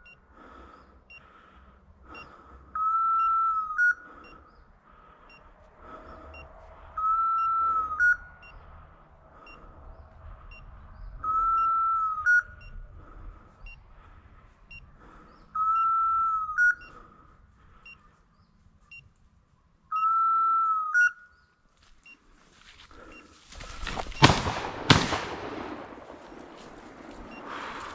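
A hunting dog's beeper collar on an English setter sounds a tone of about a second, ending in a short upward chirp, roughly every four seconds. The beeping stops, and about 24 seconds in two shotgun shots follow less than a second apart, with echo after them.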